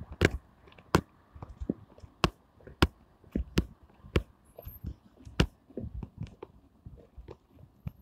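Footsteps on a raised walkway of wooden boards and metal grating: a string of sharp knocks at walking pace, roughly one every half second.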